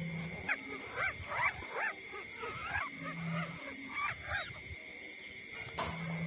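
Newborn puppies squeaking and whimpering while nursing: a quick string of short, high, rising-and-falling squeaks in the first few seconds, then a few more about four seconds in.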